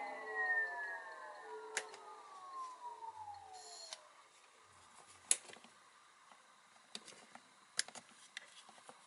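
A small electric motor spinning down after being switched off, its whine falling steadily in pitch over about four seconds. A few sharp clicks follow.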